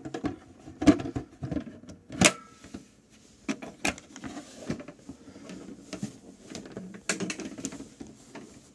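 Handling noise close to a phone's microphone: irregular knocks and clicks with fabric rustling between them. One knock just after two seconds in rings briefly.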